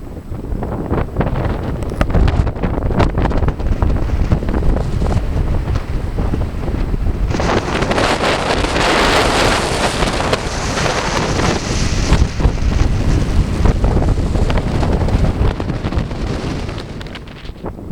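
Strong gusting wind buffeting the microphone with a heavy rumble. A louder rushing gust builds about seven seconds in and eases off about five seconds later.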